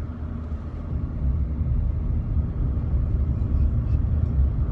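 Car cabin noise: a steady low rumble from the engine and road, heard from inside the car.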